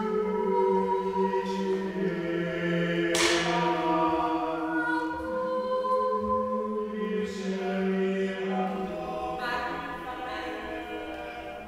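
Choir singing slow, held chords with no instruments audible, the chord changing every few seconds. Brief hissing consonants sound about three seconds in and twice more later on.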